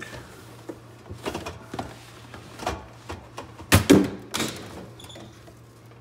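Aluminium beer cans and their cardboard case knocking and scraping on a fridge shelf. A heavy thud about four seconds in comes from a can falling to the floor, with another knock just after.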